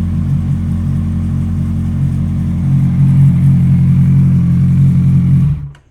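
Kawasaki Ninja 1000's inline-four engine running cold at idle with its stock mufflers off. It gets a little louder about two and a half seconds in, then is switched off near the end and dies away within about half a second.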